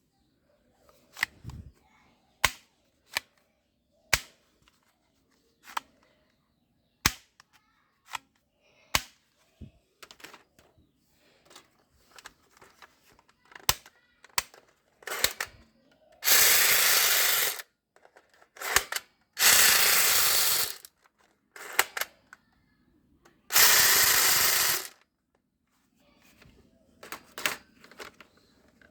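Toy guns being worked and fired: a string of single sharp clicks, then three loud bursts of rapid, noisy firing, each lasting about a second and a half, and a few more clicks near the end.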